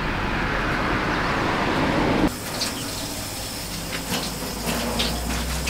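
Water running from a tap into an outdoor sink, swelling slightly, then cutting off suddenly a little over two seconds in. After it comes quieter open-air background with a few faint short chirps.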